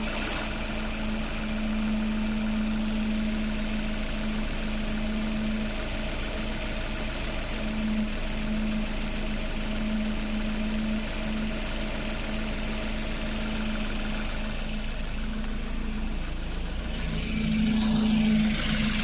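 Suzuki Ignis engine idling with a steady drone, the abnormal engine sound its owner is pointing out; it grows a little louder and changes in character near the end.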